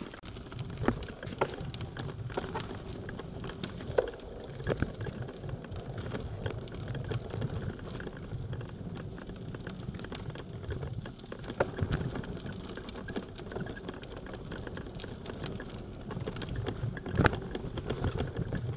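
A bicycle rolling along the rough dirt towpath inside a long tunnel: a steady low rumble with scattered clicks and knocks, a few sharper knocks standing out.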